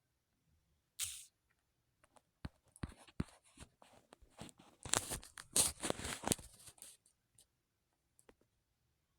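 A short burst of hiss about a second in, then several seconds of dense crackling, rustling and clicking handling noise that fades to a few scattered ticks near the end.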